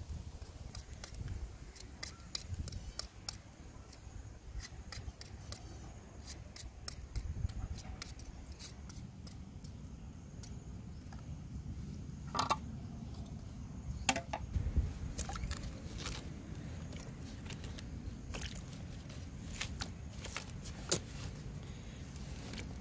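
Small knife peeling raw sweet potatoes by hand: irregular short scraping ticks as strips of skin are cut away, over a steady low rumble.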